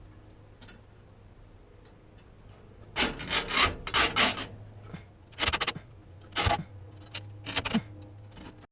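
Oil pressure line being cut by hand: after a quiet start, about three seconds in, a run of rasping, scraping cutting strokes in several short groups that die away near the end.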